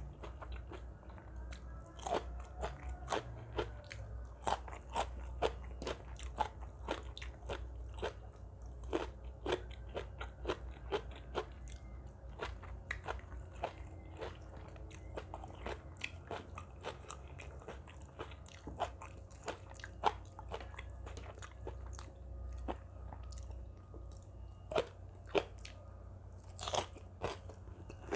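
A person chewing and biting into crunchy seafood papaya salad (tam sua), with many quick, irregular crunches.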